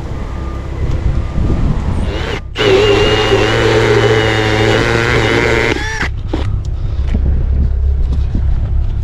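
A machine engine running steadily with wind noise, joined for about three seconds in the middle by whining, squealing tones, and a few sharp clicks near the end.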